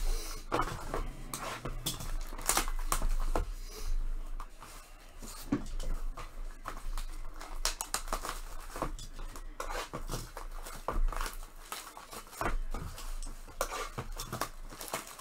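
Irregular small taps, clicks and crinkles of things being handled on a tabletop, a few strokes sharper than the rest.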